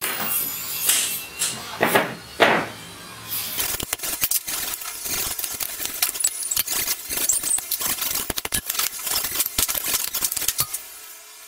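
Metal hand tools and engine parts clinking and scraping as a small four-stroke grass cutter engine is taken apart: a few louder knocks in the first three seconds, then a steady run of small metallic clicks.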